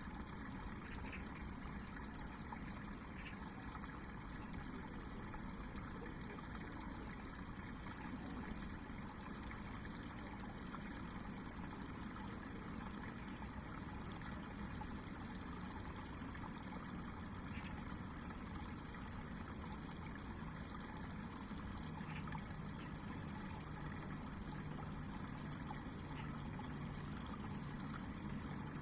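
A river running steadily, a continuous even trickling and rushing of water.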